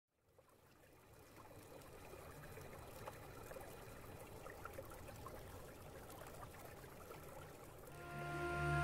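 Faint trickling, water-like noise that fades in from silence. Music with long held tones starts near the end.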